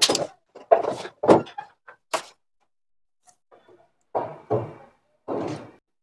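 Several separate clunks and knocks as top-load washing machine suspension rods and plastic cabinet parts are handled during a rod replacement. There is a cluster of hits in the first two seconds, a pause of about two seconds, then three more.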